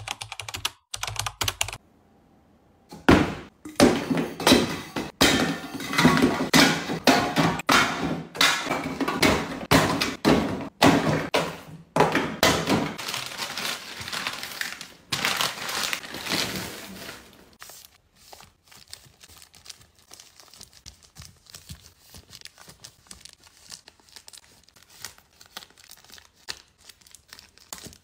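Plastic packaging crinkling and rustling, with thunks, as snack bags and packs are handled and dropped onto a shelf. The sound is busy and loud for about fifteen seconds, then turns to softer rustling and light taps.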